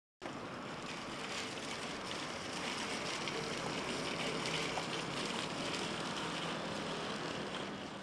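Steady rushing noise with a faint low hum, cutting in suddenly just after the start and swelling slightly toward the middle.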